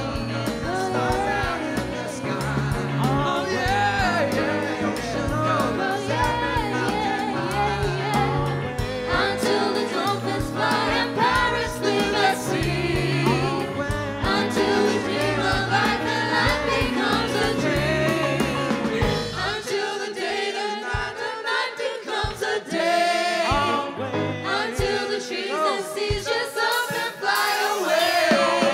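A live band plays with several voices singing together. About two-thirds of the way through the bass drops out, leaving the voices over lighter accompaniment with only occasional low hits.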